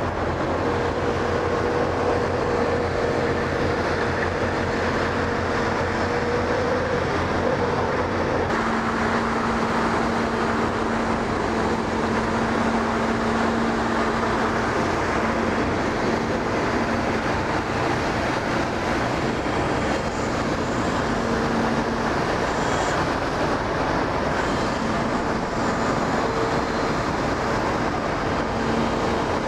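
Steady drone of heavy diesel machinery running continuously, the concrete pump and volumetric mixer truck pumping concrete. The hum's pitch changes about eight and a half seconds in.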